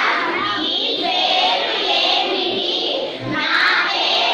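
A class of schoolchildren reading Telugu sentences aloud together in unison, a drawn-out chorus of children's voices.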